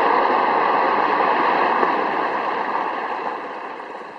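Blasted rock from a quarry bench blast sliding and pouring down as rubble, a steady rushing rumble that fades over the last second or so.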